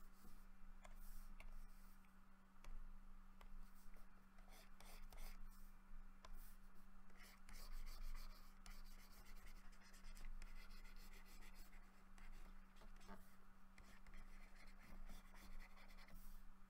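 Faint, irregular scratching of a pen stylus stroking across a graphics tablet during digital painting, over a steady low electrical hum.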